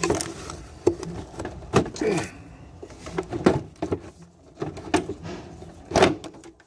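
Handling noise: a run of sharp clicks, knocks and short scrapes as the camera is set down and engine-bay parts are moved, with the loudest knock about six seconds in.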